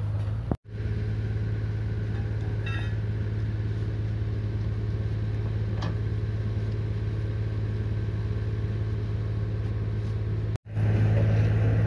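Diesel engine of a wheel loader running steadily at idle, a low, even hum that drops out briefly twice.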